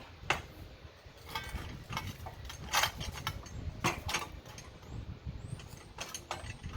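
Manual tire changer being worked by hand: the steel duckbill bar is levered under an ATV tire's bead around the rim, giving about six sharp, irregular metal clanks and knocks, some with a short ring, over a low rumble.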